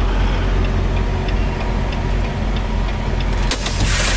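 Semi truck's diesel engine idling in the cab, with the turn-signal relay ticking steadily, about three ticks a second. Near the end a sharp click is followed by a loud hiss of air from the truck's air brake system.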